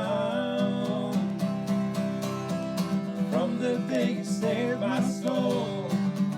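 Worship band music led by strummed acoustic guitar, playing between sung lines of the song.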